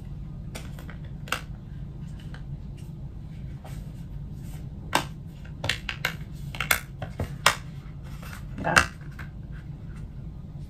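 A two-piece snap-on plastic iPhone case is handled and snapped together around a phone: scattered sharp clicks and taps of plastic on plastic, the loudest near the end, over a low steady hum.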